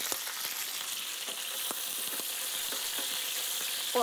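Floured chicken pieces frying in a hot pan: a steady, fairly loud sizzle, the sign that the pieces are browned underneath and ready to be turned. Light clicks come now and then as a wooden spatula and fork move them in the pan.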